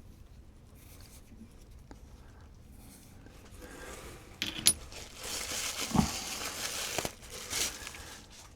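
Packing paper crinkling and rustling as rocks are unwrapped and taken from a box, with a few sharp clicks of stone knocking against stone, the loudest about six seconds in.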